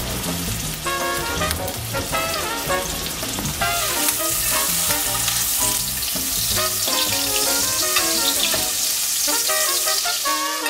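Beef tenderloin sizzling and spitting as it fries in hot foaming fat in a stainless steel pan while the fat is spooned over it. The sizzle grows louder about four seconds in.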